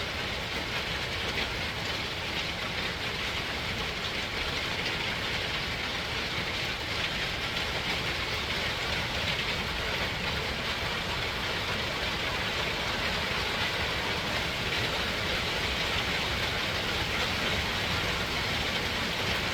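Heavy thunderstorm rain falling, a steady, even hiss with no breaks and no thunderclaps.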